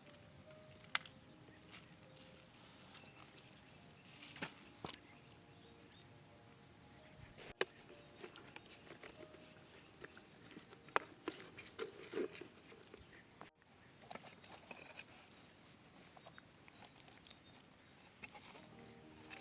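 Faint, scattered clicks and knocks at irregular intervals, several a few seconds apart, over low background noise.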